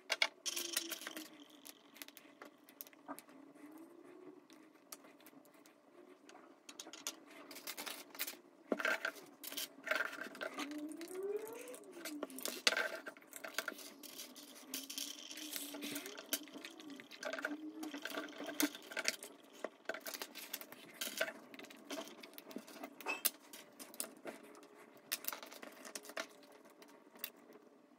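Lego bricks being handled and pressed together on a wooden table: faint, irregular small plastic clicks and rattles as pieces are picked up and snapped onto the model.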